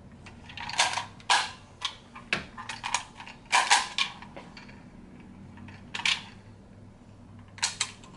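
Handheld price-label gun clicking and clacking as it is worked by hand: a run of sharp plastic clicks over the first few seconds, one more about six seconds in, and more near the end. The gun has run out of price tags.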